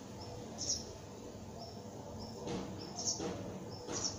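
A small bird chirping outside, one short high chirp repeated about once a second. Partway through, a man draws on a cigarillo and breathes the smoke out in a couple of breathy puffs.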